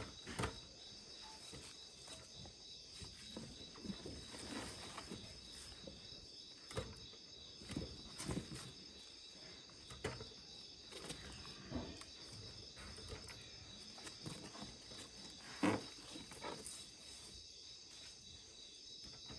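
Faint steady chirring of crickets, with scattered short rustles and knocks as wild notoginseng plants and their leaves are handled on a weighing scale; the loudest knock comes about four-fifths of the way through.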